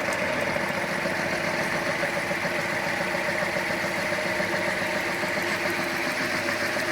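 Concrete floor grinding machine running steadily, a constant machine hum with steady tones and no change in speed.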